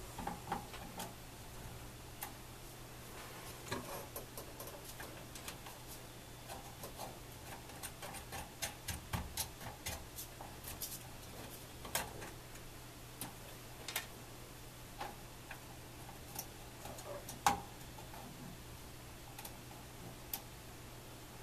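Small irregular metal clicks and scrapes of pliers working the clamping nut on a soldering station's front-panel potentiometer to loosen it, with one sharper click near the end, over a faint steady low hum.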